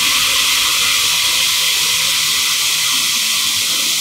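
FJ6000 urinal flush valve with a Cobra EL-3013 infrared sensor retrofit, flushing on its own after the sensor's delay. The open outlet sends a steady, hissing jet of water into a steel trough.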